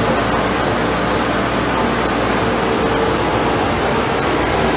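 Hollymatic 3000 mixer grinder running steadily while grinding meat: a loud, even machine noise with a low hum underneath.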